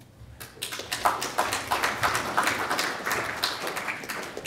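Audience applauding. The clapping starts about half a second in, quickly fills out, and dies away near the end.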